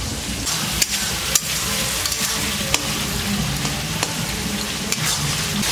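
Curry masala sizzling in a metal kadai as a spatula stirs and scrapes through it. A few sharp clicks come from the spatula striking the pan.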